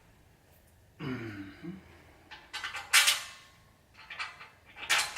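Steel rack parts being handled during assembly: a few sharp metallic clinks and rattles as screws and nuts are fitted through the side rail and bottom piece, the loudest about three seconds in and another near the end. A brief low vocal sound comes about a second in.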